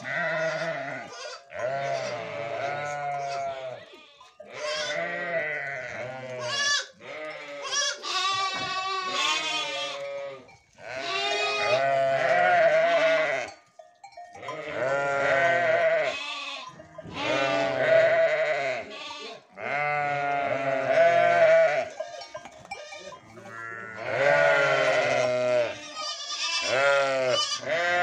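A flock of sheep and lambs bleating, one long wavering call after another, often overlapping, with short gaps between them.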